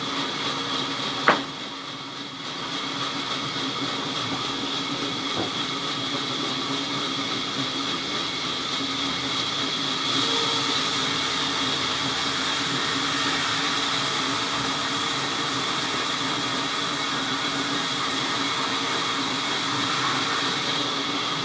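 Sawmill machinery running steadily, a continuous mechanical drone with a steady high whine, broken by one sharp click about a second in.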